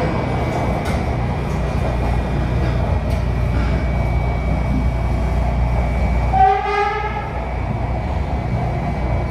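MARTA rapid-transit train running, heard from inside the car: a steady low rumble with a few faint clicks from the track. About six and a half seconds in there is a brief pitched tone, under a second long.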